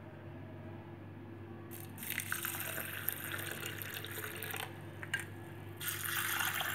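Water poured from a jug into a bowl of split urad dal for about three seconds, then, after a short pause, a second shorter pour into a bowl of chana dal near the end, setting the lentils to soak.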